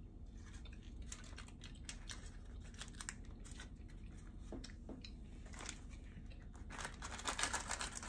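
Faint chewing of a peanut butter cup, with small clicks and crackles of a Reese's candy wrapper being handled; the wrapper crinkling grows denser and louder near the end.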